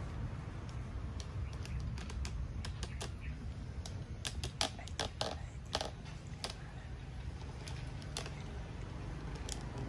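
Two dogs eating from metal bowls: irregular crunching and clicks of dry food and bowl clinks, busiest in the middle, over a steady low rumble.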